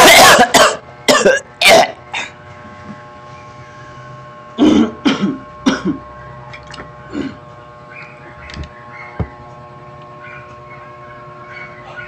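A man clearing his throat and coughing in a series of loud, short bursts, several in the first two seconds and a few more about five seconds in, followed by a few faint clicks.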